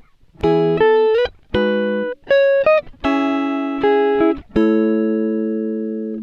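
Background music: a slow melody of plucked notes, each ringing and fading, a few of them bending up in pitch.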